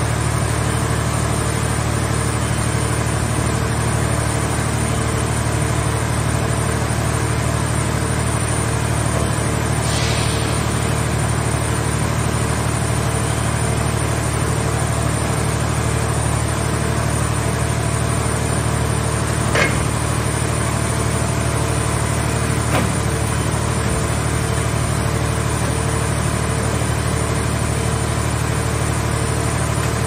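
Gasoline engine of a mobile car-scrap baler running steadily as it drives the hydraulic grab and press. Two sharp knocks stand out in the second half.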